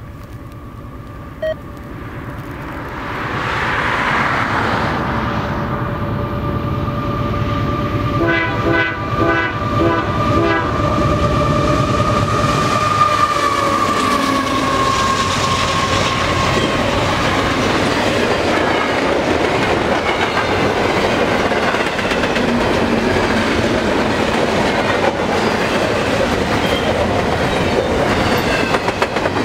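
Canadian Pacific freight train passing at speed, led by an AC4400CW locomotive. The locomotive's horn sounds as it approaches, with a short run of quick pulsed tones about eight seconds in, and the horn's pitch drops as the locomotive goes by. Then comes the steady rumble and wheel clickety-clack of double-stack intermodal well cars rolling past.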